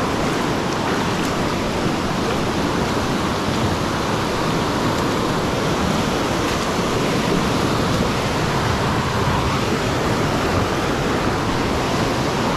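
Mountain river rushing over rocks through whitewater rapids close by, a steady loud rush of water; the river is running high.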